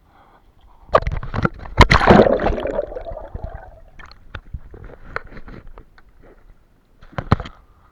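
Water splashing and sloshing with sharp knocks, loudest in a rush from about one to three seconds in and again in a short burst near the end.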